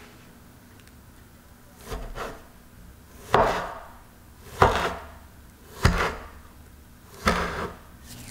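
Metal bench scraper chopping down through logs of cookie dough and knocking on a wooden cutting board: a faint pair of taps about two seconds in, then four sharp chops spaced about a second and a quarter apart.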